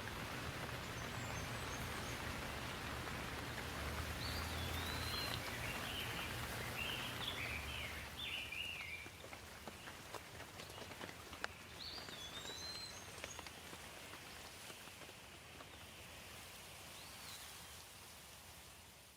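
Steady rain falling, a little softer after the first half. A bird chirps a few short phrases through it, mostly in the middle, and again briefly later.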